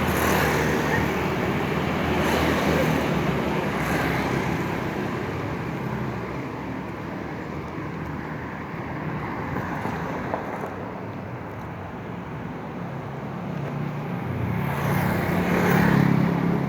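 Street traffic noise of passing motorbikes and cars. It is quieter in the middle, and a vehicle passes close and loud near the end.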